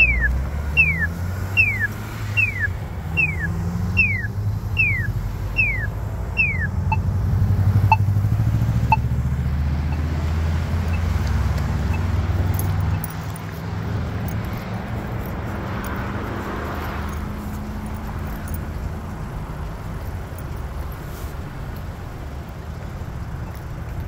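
Polara iN2 accessible pedestrian push button sounding its walk signal: a short falling electronic chirp about every 0.8 s, nine times, followed by a few slow single locator ticks about a second apart. Road traffic runs underneath, with a vehicle passing close by around the middle.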